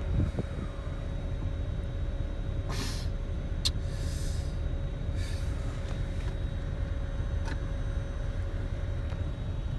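Steady low rumble inside a car's cabin, with a faint constant hum. A few soft rustles come through it, the loudest about three seconds in, followed by a small click.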